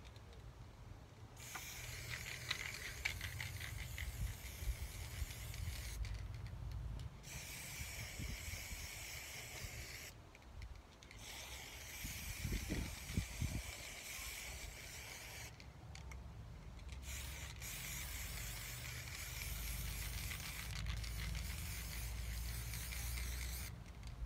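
Aerosol spray-paint can spraying in four long hissing bursts of several seconds each, with short breaks between them.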